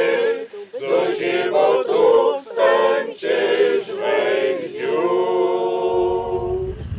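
Church choir singing a cappella, syllable by syllable, then holding a long final chord that stops just before the end. Wind rumble on the microphone comes in as the chord is held.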